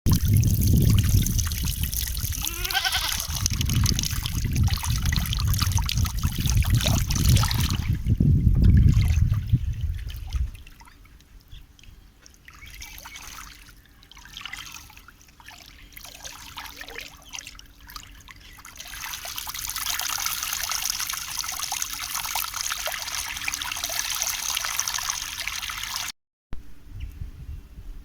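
Running water trickling and splashing: full and deep for about the first ten seconds, then thinner with separate trickles and drips, then a steady hiss of flowing water that cuts off suddenly near the end.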